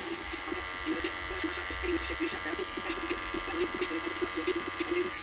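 Electric hair clippers running with a steady buzz as they cut the hair at the back of the neck.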